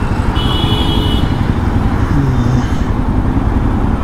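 Steady rumble of road traffic, with a short high-pitched vehicle horn sounding for about a second near the start.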